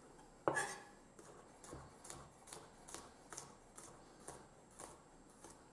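Chef's knife slicing garlic cloves into thin rounds on a wooden cutting board, the blade knocking faintly on the board about twice a second, with one louder knock about half a second in.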